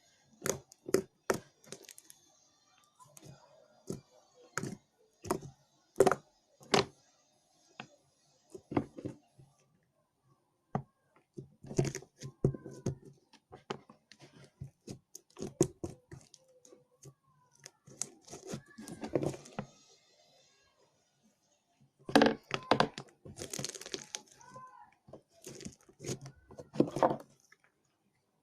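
Slime being squeezed and worked by hand, giving a string of sharp pops and sticky crackles, at first one after another and later in denser crackling clusters.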